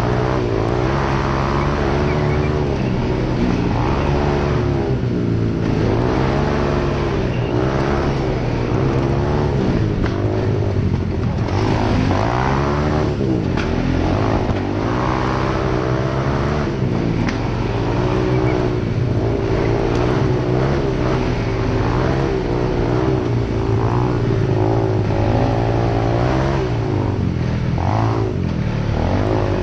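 ATV's single-cylinder four-stroke engine running under load on a dirt trail, its pitch rising and falling again and again as the throttle is opened and eased off.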